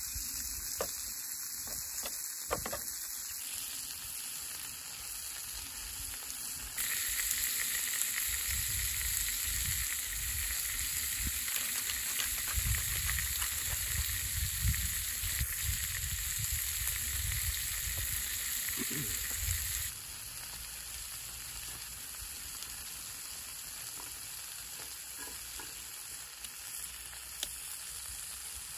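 Lamb chops and chopped vegetables sizzling in a frying pan over a rocket stove. The sizzle grows louder about seven seconds in and drops back about two-thirds of the way through.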